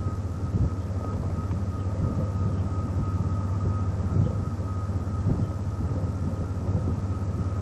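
Wind buffeting an outdoor camcorder microphone during a tornado: a steady low rumble with irregular gusty flutters, and a thin steady high tone running through it.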